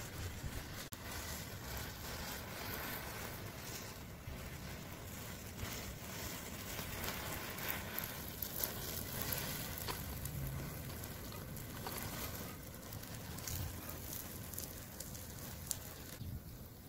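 Matchstick model bridge burning in open flames: a steady crackle with scattered sharp snaps.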